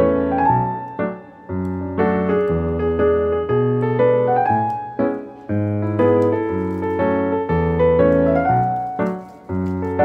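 Background piano music: melody notes over chords in phrases of about four seconds, with a brief drop in level between phrases.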